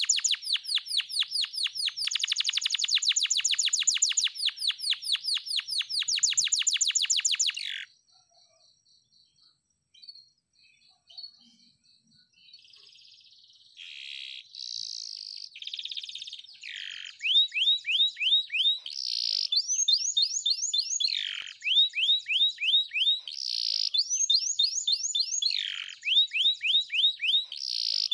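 Domestic canary singing: long, rapid trills and rolls, breaking off about eight seconds in for a few seconds of faint high notes before the song resumes with chirps and fast trills.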